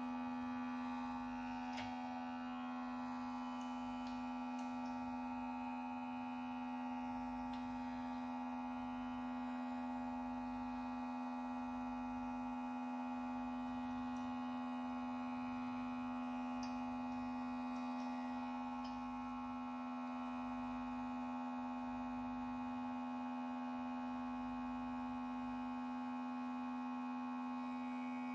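Steady electrical hum, one strong low tone with many higher overtones, unchanging throughout, with a few faint small ticks.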